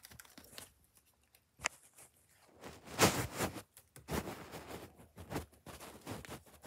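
Irregular rustling and scuffling of a cat batting and grabbing at a feather wand toy on a carpeted cat tree, with one sharp click after about a second and a half.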